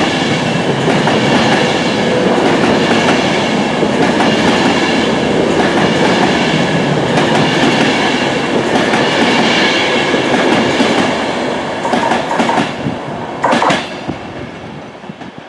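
Avanti West Coast Class 390 Pendolino electric multiple unit passing through close by: a loud, steady rush of wheels on rail with clickety-clack, fading over the last few seconds as the rear of the train draws away. Two sharp knocks sound near the end.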